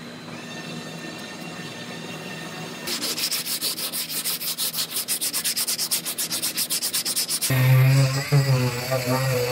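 Hand sanding of body filler on a car's quarter panel: rapid back-and-forth scraping strokes, about seven a second, starting about three seconds in. Near the end a small handheld rotary tool with an abrasive disc starts running with a wavering pitch, and it is the loudest sound.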